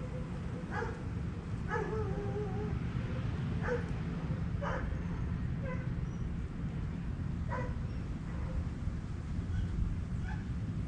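A series of short, yelping animal calls, about one a second and irregular, one of them longer and falling in pitch about two seconds in, over a steady low rumble.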